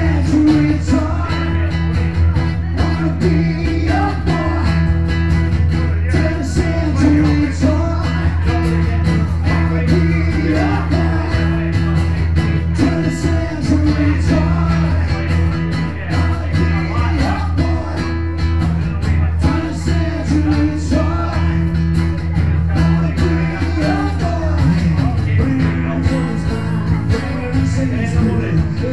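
Live acoustic guitar duo playing a song over the PA, strummed guitar with a sung vocal, going on steadily.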